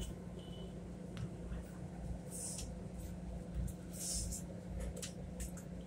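Interior of a slowly moving Long Island Rail Road electric commuter train: a steady electrical hum over a low rumble. Short hissing bursts come about every second and a half to two seconds, with a few faint clicks.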